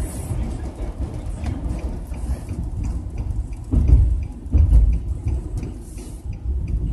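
Car running along the road, heard from inside the cabin as a steady low rumble with two heavier thumps near the middle. About three seconds in, a turn signal starts ticking, about three ticks a second.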